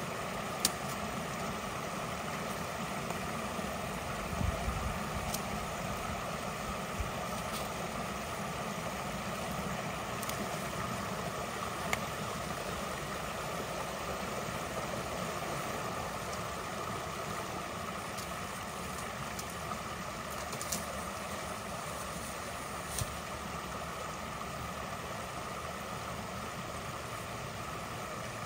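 Steady rush of water flowing through a beaver dam being cleared at a culvert, with a few sharp clicks and knocks scattered through it.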